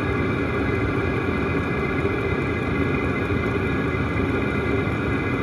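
Chinese all-in-one diesel heater running: a steady whir from its blower fan pushing out hot air along with the combustion.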